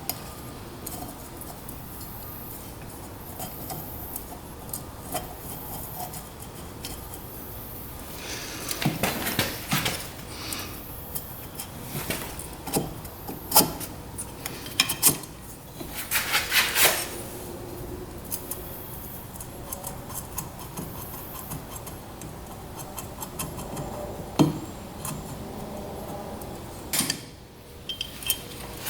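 Metal engine parts and hand tools clinking and clattering on a workbench during top-end assembly of a small engine, in scattered bursts of sharp clicks and short rattles.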